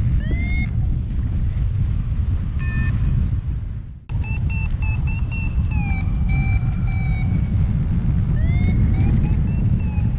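Paraglider variometer beeping its climb tone, short beeps several a second, some sliding in pitch, over a loud rush of wind on the microphone. The sound briefly drops out about four seconds in, then the beeping resumes.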